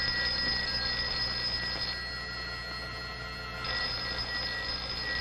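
Desk telephone bell ringing: one ring of about two seconds that stops, then after a pause of under two seconds a second ring begins.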